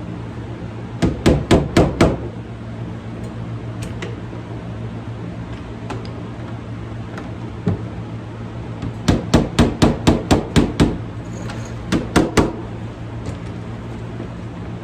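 Body hammer tapping on the thin sheet metal of a car door around a welded-on pin held under pull by a lever-type dent puller: light, quick runs of strikes, about five a second in, a run of about nine in the middle and four more near the end. The hammer is working the metal around the dent while the pin pulls the low spot up.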